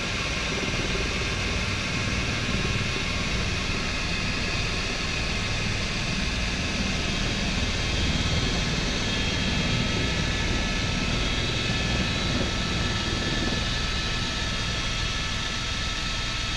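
Tour helicopter's turbine and main rotor heard from inside the cabin during lift-off and climb: a steady low rotor thrum with a thin high turbine whine over it.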